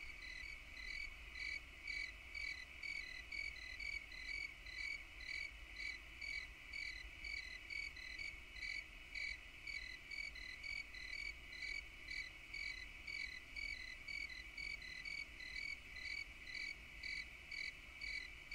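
Insects calling: a steady high drone with a rhythmic chirp repeating about two or three times a second.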